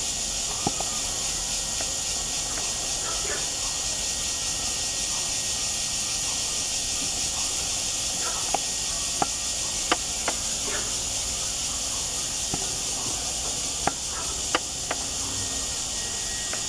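Aviary ambience: a steady high-pitched hiss, with about eight sharp clicks scattered through, most of them in the second half, and a few faint short chirps.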